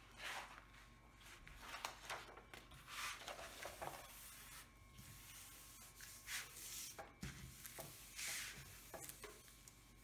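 Hands rubbing and smoothing the plastic cover film of a diamond painting canvas to flatten it on the table: a string of soft swishes and rustles, some sharper, every second or so.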